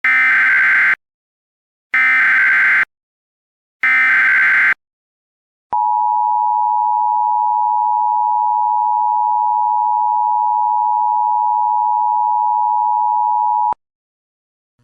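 Emergency Alert System tones: three short, harsh bursts of SAME header data about a second apart, then the steady two-tone attention signal held for about eight seconds. Together they open an EAS Required Monthly Test.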